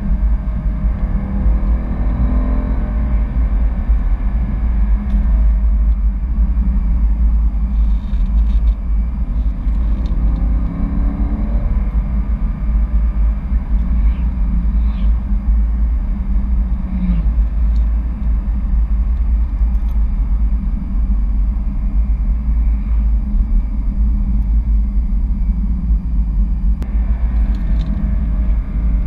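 BMW E92 M3's V8 and road noise heard from inside the cabin while driving, a steady low rumble with the engine note rising twice as the car accelerates.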